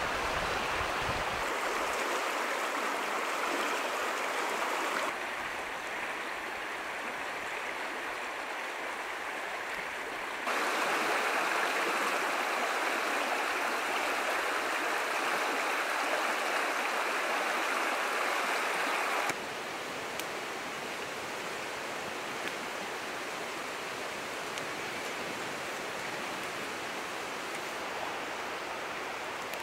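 Shallow river rushing steadily over a pebble bed. The level jumps up and down in steps and is loudest in the middle stretch.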